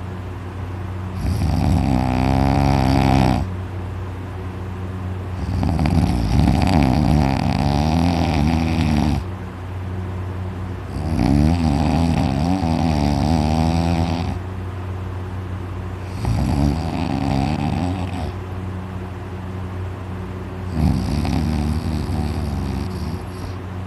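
A man snoring heavily in deep sleep: five long, loud snores, each two to four seconds, with quieter breathing between.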